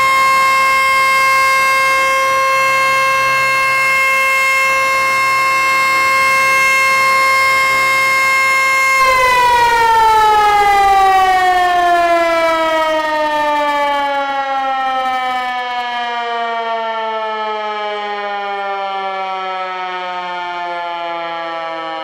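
American Signal T-121 outdoor warning siren sounding a steady tone during a test. About nine seconds in it shuts off and winds down, its pitch falling slowly as it fades.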